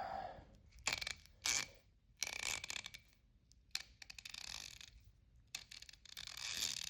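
Quinn 1/2-inch drive ratchet being worked back and forth, its pawl clicking in several short bursts, with the mechanism freshly greased with silicone paste.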